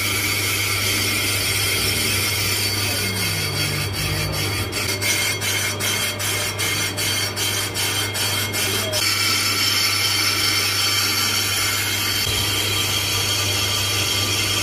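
A brake drum being turned on a lathe: the cutting tool scrapes across the spinning drum's braking surface with a harsh hiss over the lathe motor's steady hum. From about three to nine seconds in, a regular tick comes about three times a second, and after that the hiss is smoother and steadier.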